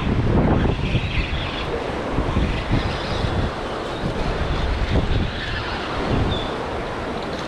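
Gusty wind on the microphone over the rush of rough surf.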